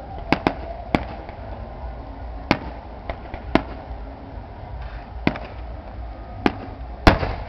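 Aerial firework shells bursting: a string of about nine sharp bangs at irregular intervals, the loudest near the end with a short echoing tail.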